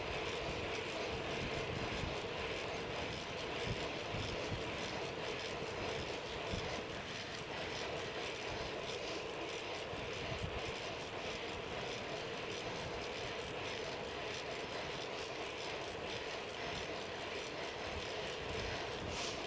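Steady rush of wind over the microphone with bicycle tyre and road noise from riding at speed, the low end buffeting unevenly.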